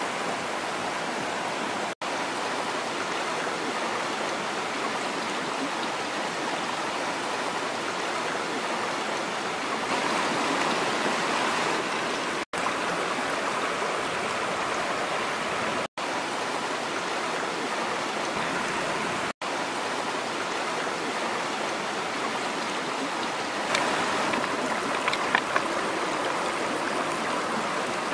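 A shallow rocky stream rushing over small rapids, a steady wash of water that cuts out for an instant four times. A few short clicks stand out above it near the end.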